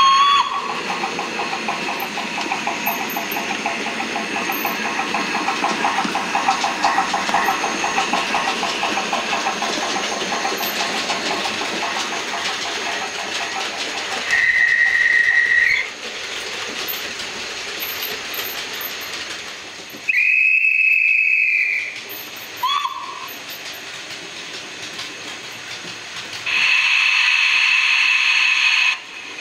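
Steam locomotive sounds: fast, even chuffing with steam hiss that fades out about halfway through, then four separate whistle blasts, one of them short and lower-pitched.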